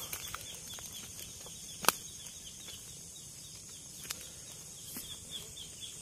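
Rural field ambience: a steady high insect buzz under a quick, regular run of short falling chirps, a few each second. A sharp snap comes about two seconds in and a fainter one about four seconds in.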